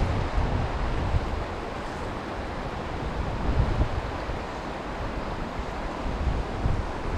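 Steady rushing of stream water, with wind buffeting the microphone in uneven gusts.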